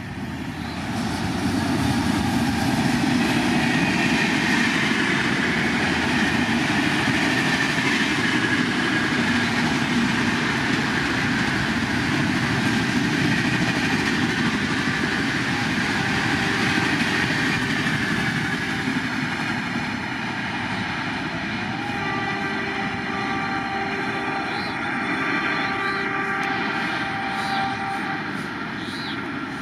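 An electric-hauled express of LHB coaches passing close at about 130 km/h, with a loud, steady rush of wheels on rail. After about twenty seconds the rush eases off, and a steadier sound with several held tones comes in.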